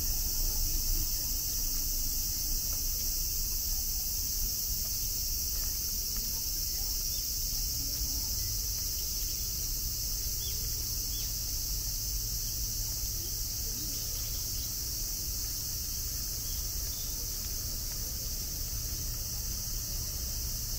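A steady chorus of insects buzzing at a high pitch without a break, over a low steady rumble.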